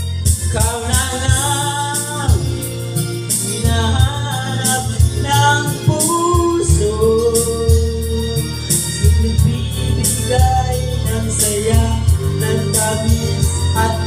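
A man singing a slow song into a handheld microphone over a backing track with a steady beat and bass.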